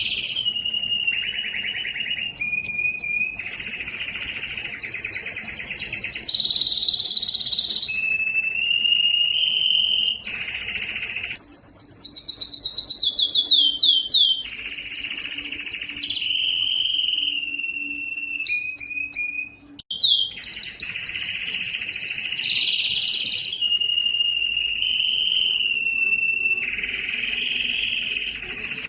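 Canary singing a long continuous song, switching between rapid trills and steady whistled notes, with a run of falling notes about halfway through and a brief break about two-thirds in.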